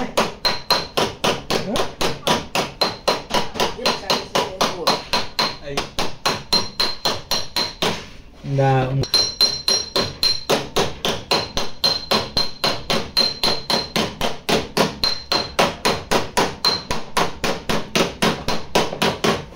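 Small PDR tap-down hammer tapping rapidly and evenly on the steel wheel-arch lip of a Toyota Vitz rear quarter panel, about five light strikes a second, the metal ringing faintly between them. The tapping breaks off briefly about eight seconds in, then carries on.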